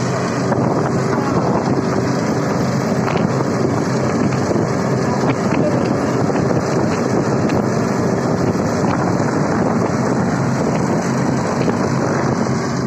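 Steady running of heavy road-works machinery's engine, with wind buffeting the microphone throughout.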